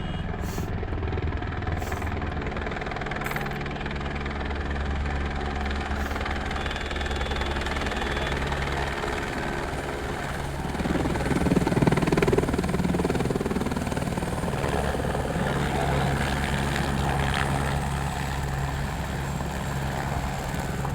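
Helicopter engine and rotor running with a steady low drone, swelling louder for a couple of seconds about halfway through.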